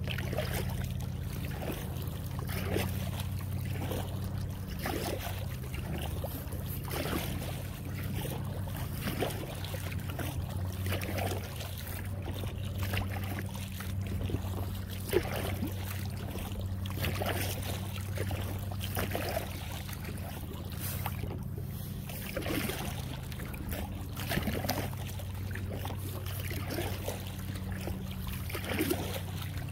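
Kayak paddle dipping and water trickling off the blades and along an inflatable kayak's hull in irregular strokes every second or two, over a steady low hum.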